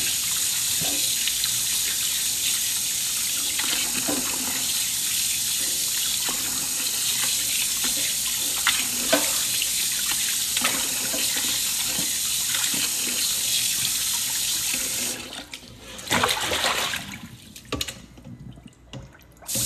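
Kitchen tap running into a stainless steel sink while pork ribs are rubbed clean under the stream in a metal colander, with a few light knocks. About fifteen seconds in the water is turned off, and a few short clatters follow.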